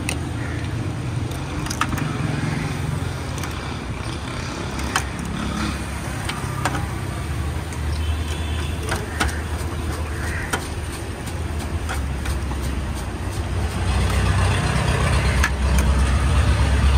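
Street traffic: a motor vehicle's engine runs steadily and grows louder near the end, with scattered sharp clicks over it.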